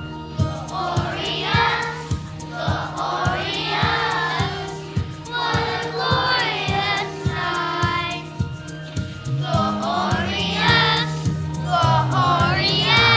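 Children's choir singing together over an accompaniment with a steady beat, the voices coming in about half a second in.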